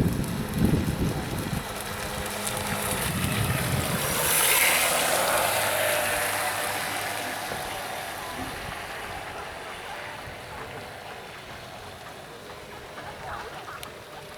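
Vintage SHG Shadow RC model boat with a 3650 brushless motor running across the water. Its motor whine and spray swell to a peak about four seconds in, then fade away over several seconds.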